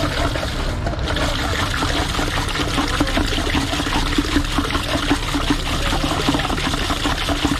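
Liquid pouring and trickling, with small splashes, over a steady low hum.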